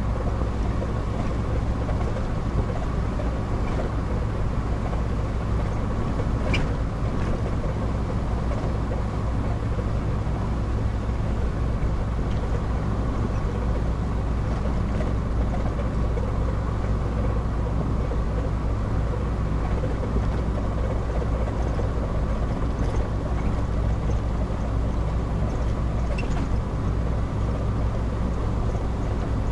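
Car driving at steady speed, heard from inside the cabin: a continuous low drone of engine and tyre road noise.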